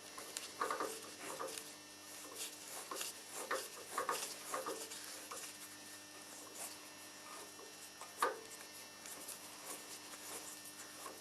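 Hand tap cutting a 6 mm thread in a drilled hole, turned with a tap wrench: irregular creaks, scrapes and clicks, the sharpest about eight seconds in, over a faint steady hum.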